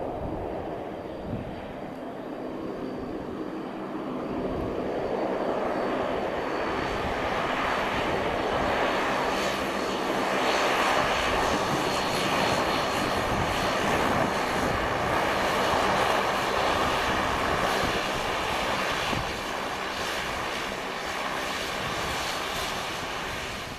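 Airliner's engines running as it passes, growing steadily louder to a peak in the middle and easing off near the end.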